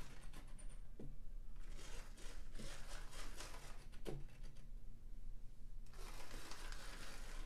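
Small electric motor of a Lima model tank locomotive whirring in stretches as the model is test-run back and forth along the track, with a few soft knocks as it is handled.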